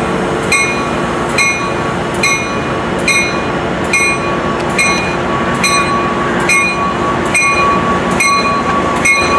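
A bell ringing steadily, a strike a little more than once a second, over a diesel commuter train running, with a steady high whine underneath.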